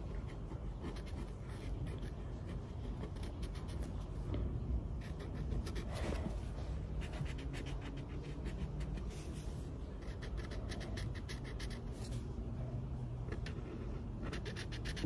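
Yellow crayon scribbling on a colouring-book page: quick back-and-forth strokes in short spells of a second or so, with brief pauses between.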